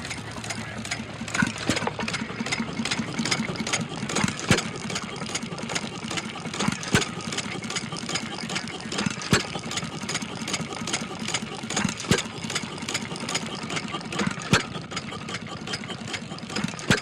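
Small gasoline engine of a portable water pump running steadily at idle-to-mid speed, with sharp clicks standing out about every two and a half seconds; it stops abruptly at the end.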